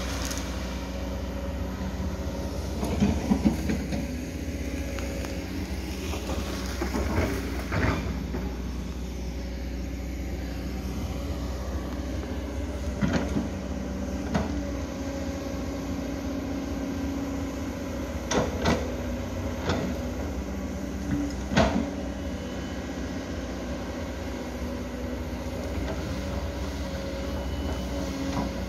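Diesel engine of a tracked hydraulic excavator running steadily while it digs, with irregular knocks and clanks every few seconds as the bucket works into earth, stones and timber. The loudest knocks come a few seconds in and again a little past two-thirds of the way through.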